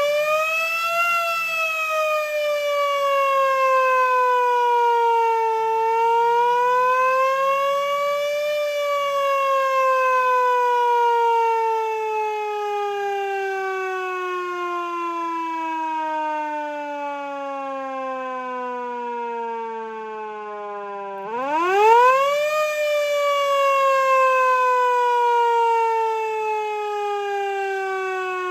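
ABCO Art Burnside firetruck siren wailing. It winds up near the start, sags, rises again, then coasts down in pitch for a long stretch. About three quarters of the way in it winds up sharply once more and then falls again.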